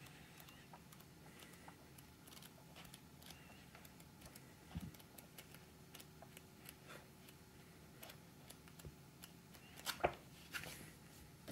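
Pages of a paperback book being flipped by hand: soft paper rustles and flicks, a low knock about five seconds in, and a louder crisp page snap about ten seconds in.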